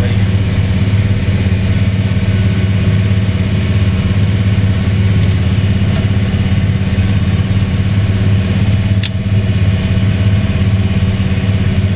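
John Deere combine running at full throttle while its pickup header feeds a barley swath into the machine for threshing: a loud, steady drone with a strong low hum, heard from the cab. A single brief click about nine seconds in.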